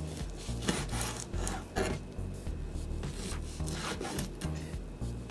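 Large kitchen knife sawing through smoked beef on a plastic cutting board: repeated rasping strokes of the blade through the crusty meat and against the board, about two a second.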